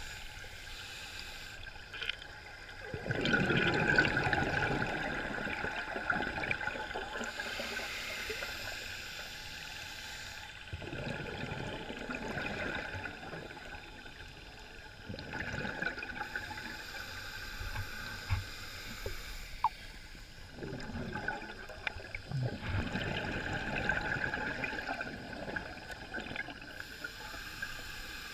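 Scuba diver breathing underwater through a regulator: exhaled air bubbling out in bursts about every four seconds, the loudest a few seconds in.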